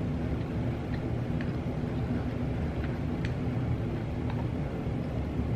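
A steady low background rumble, with a few faint, scattered clicks of chewing and mouth sounds from someone eating.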